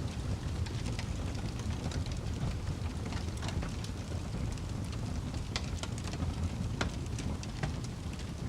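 Fire burning, with irregular sharp crackles and pops over a steady low rumble.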